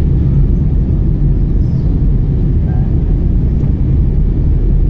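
Steady low rumble of jet airliner cabin noise, engines and rushing air heard from inside the cabin at a window seat.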